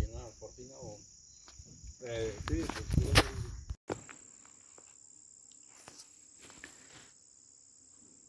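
Crickets trilling in a steady, high-pitched chorus. Brief snatches of voice come in the first three seconds, with a sharp click about three seconds in, and after that only faint handling noise.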